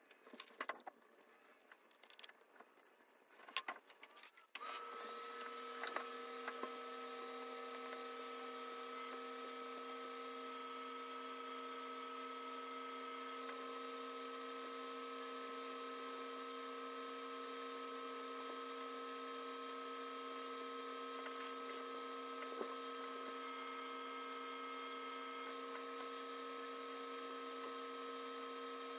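A few soft taps and scrapes, then a steady hum made of several fixed pitches that starts suddenly about four and a half seconds in and holds unchanged.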